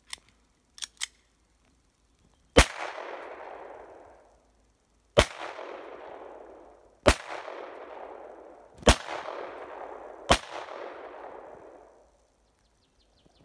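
Blow Magnum blank-firing pistol, a Browning-style 14-round model, firing Özkursan 500-bar blank cartridges: five loud shots about two seconds apart, each trailing off in a long echo, the pistol cycling without a jam. A few light clicks come before the first shot.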